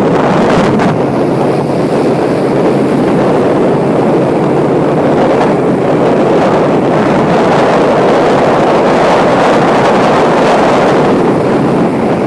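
Strong wind rushing steadily over the microphone aboard a cruising sampan fishing boat, with the boat's motion through the water underneath.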